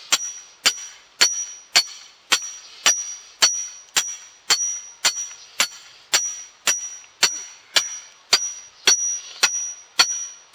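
A hammer drives a thin iron stake into the ground in steady blows, just under two a second. Each blow gives a sharp metallic clang with a high ringing note.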